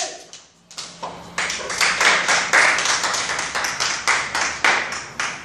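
Wooden training sticks clacking in a fast run of sharp strikes, about five a second, after a single loud crack at the start and a brief pause.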